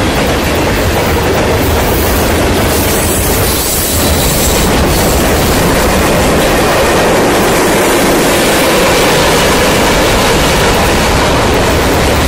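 Freight train cars, covered hoppers and boxcars, rolling past at close range: a loud, steady noise of steel wheels running on the rails.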